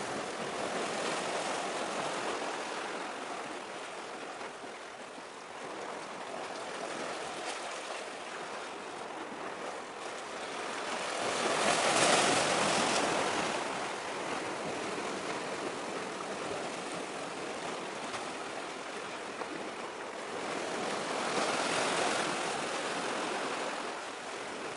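Surf washing on the shore: a steady rush of waves that swells louder about halfway through and again near the end.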